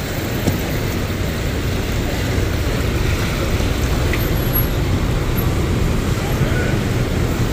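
Steady road traffic noise, with no distinct events standing out.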